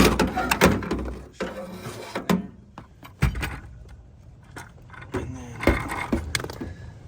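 Handling noise from a duct smoke detector being taken apart: irregular clicks, knocks and scrapes of its plastic and metal parts as the sensor is worked loose. The sharpest knock comes right at the start.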